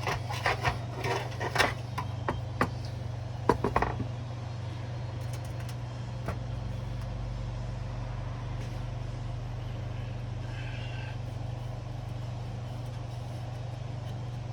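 Metal parts clinking and knocking for the first four seconds as a heat shield and its bolts are handled, over a steady low hum.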